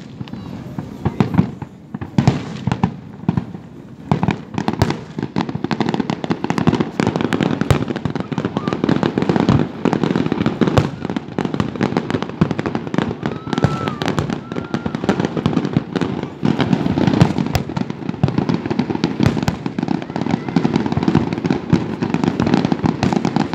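Fireworks going off: separate bangs at first, thickening after a few seconds into a dense, continuous run of overlapping cracks and booms.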